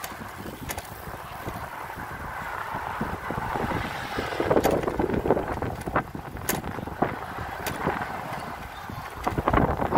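Steady rushing ride noise from a bicycle on a paved path: wind on the microphone and rolling road noise, with a few sharp clicks.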